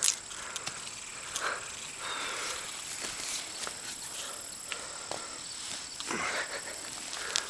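Digging in a potato hill of dry soil: faint scraping and crumbling of earth with a few light knocks, while a steady high thin tone runs underneath.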